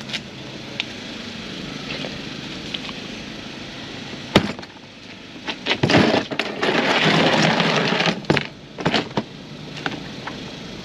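Handling noises: sharp clicks and knocks, with a rustling scrape lasting about a second and a half midway, over a steady low hum.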